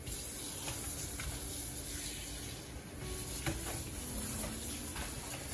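Kitchen faucet water running steadily into the sink as salted pollock fillet is rinsed under it, with a few faint knocks.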